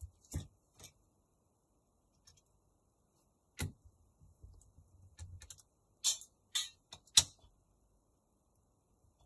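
Small sharp clicks and taps of a screwdriver and tiny screws being handled on a smartphone's housing, about seven of them spread out, the loudest about seven seconds in. There is soft rustling around the middle.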